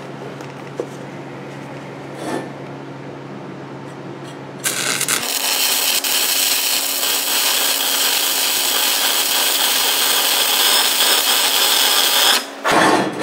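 Shielded metal arc (stick) welding with a 1/8-inch 6010 electrode laying a tack weld on steel pipe. After a steady low hum, the arc strikes about four and a half seconds in, crackles and hisses loudly and steadily for about eight seconds, then breaks off abruptly.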